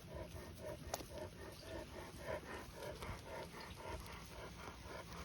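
Farm animals making short, faint calls in a quick repeated run, about three or four a second.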